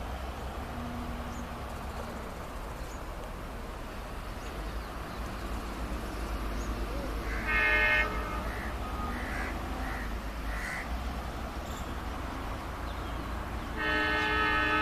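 Crows cawing a few times in the middle, just after one short loud blast. About a second before the end, the horn of an Indian Railways WDM-3D diesel locomotive starts, loud and held.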